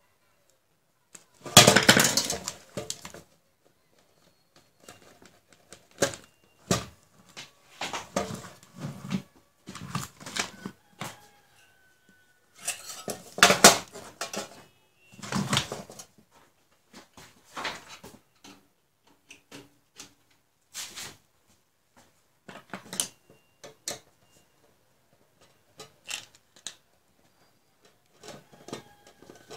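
Irregular metallic clatter and knocks from a computer power supply's sheet-metal case being handled and opened up, with the loudest bursts about a second and a half in and about halfway through, and lighter clicks in between.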